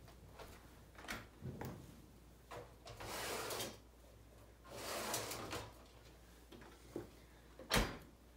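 Dishwasher being opened, a few clicks as the door comes down, its rack rolled out and back in, then the door shut with a loud thump near the end.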